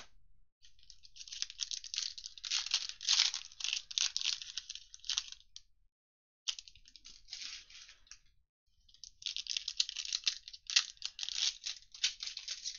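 Foil wrappers of 2021 Playoff football trading-card packs crinkling and tearing as the packs are handled and ripped open, in dense crackly runs with two short pauses.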